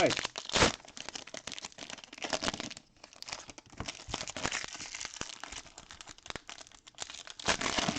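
Plastic wrapping of trading card packs crinkling and tearing as it is handled and torn open: a dense run of rustles and small clicks, louder about half a second in and again near the end.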